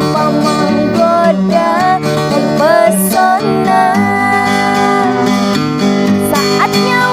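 Acoustic guitar playing the instrumental break of a pop ballad: strummed chords under a melody line.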